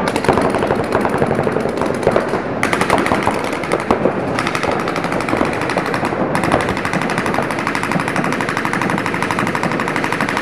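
Paintball markers firing rapid, continuous streams of shots, several guns overlapping, during a tournament game.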